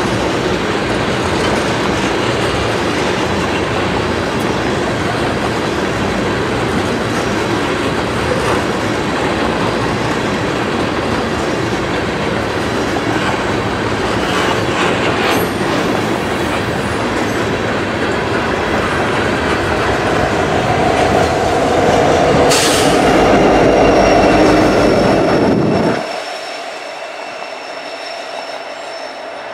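Freight train of tank cars rolling past at close range: a loud, steady noise of wheels on rail that swells louder about twenty seconds in, with a sharp clank just before. About four seconds before the end it drops suddenly to a much quieter, steady rail noise.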